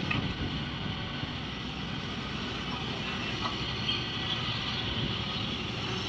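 Matador Shantui crawler excavator running steadily while it digs and lifts a bucket of wet soil.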